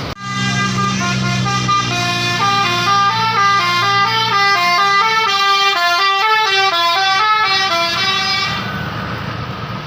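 A bus's 'basuri' telolet musical horn playing a quick melody of stepped notes, loud, for about eight seconds before it cuts off near the end.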